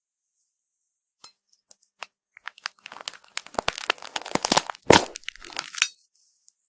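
Something brittle being crushed: a few scattered cracks, then a dense run of crackling and crunching snaps with one loudest snap near the middle, stopping abruptly about a second before the end.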